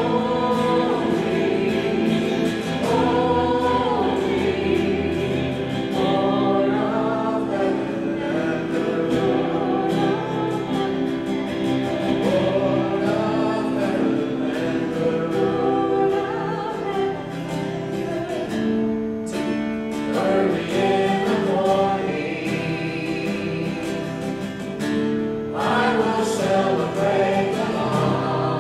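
Live church worship band: several singers on microphones with acoustic guitar and other instruments, singing a contemporary worship song together.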